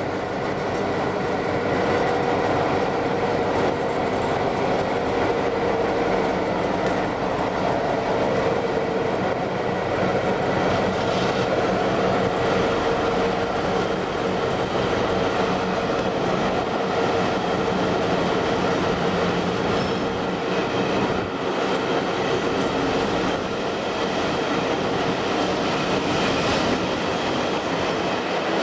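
A train running along the track, heard from the open side of the train: steady rumble and rolling noise of steel wheels on rail, with a few louder clatters over rail joints.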